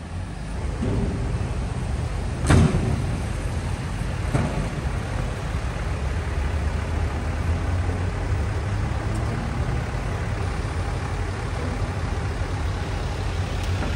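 Pickup truck engine running as the heavy-duty dually rolls slowly onto a truck scale, a steady low rumble, with one sudden thump about two and a half seconds in.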